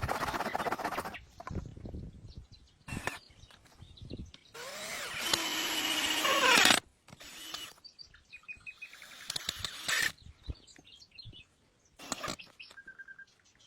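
A power drill runs for about two seconds, getting louder until it cuts off suddenly, amid a series of short, clipped working sounds from building with wood. A bird chirps briefly a couple of times in the background.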